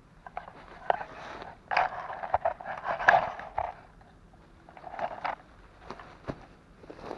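Dry leaf litter and grass rustling and crackling underfoot and under hand, in irregular bursts that are loudest in the first three and a half seconds, with a few sharp snaps of twigs near the end.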